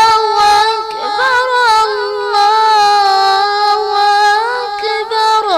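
A muezzin's voice holds the long, ornamented closing note of 'Allahu akbar' in the adhan. It is one sustained sung tone with slight wavers, and near the end it breaks off with a short downward slide.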